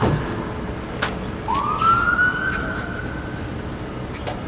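A siren wail: one tone that rises about a second and a half in, holds for around two seconds, then fades.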